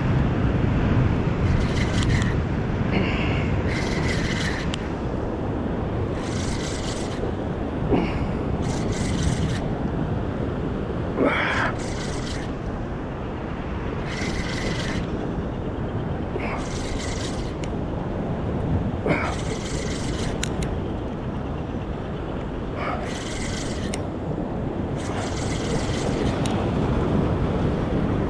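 Spinning reel being cranked in repeated short spells, each a brief whirring burst, while a hooked fish is played in. Under it runs a steady rush of wind and surf on the rocks.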